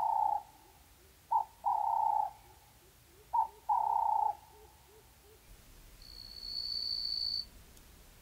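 A bird calling in a sparse Namib desert ambience: a short note followed by a longer held note, repeated three times about two seconds apart, over faint rapid ticking. Near the end a steady high-pitched insect buzz runs for about a second and a half.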